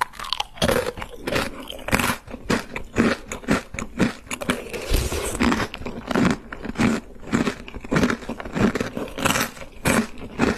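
Crunchy chocolate cereal chewed close to the microphone, starting with a filled cereal pillow bitten off a wooden spoon: crisp crunches in a steady rhythm, about two a second.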